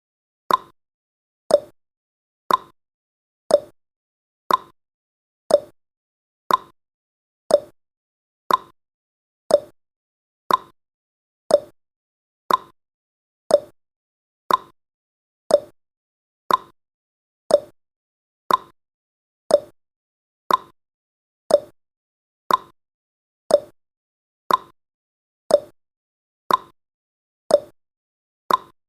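Countdown timer's ticking sound effect: a sharp tick once every second, alternating higher and lower in pitch like a clock's tick-tock.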